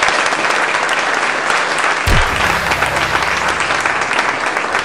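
Audience applauding, a dense, steady clapping. About two seconds in, a deep low tone comes in with a quick downward swoop and holds for about two seconds under the clapping.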